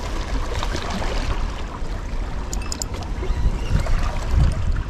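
Wind buffeting the microphone as a low rumble that swells a few seconds in, over sea water washing against shore rocks.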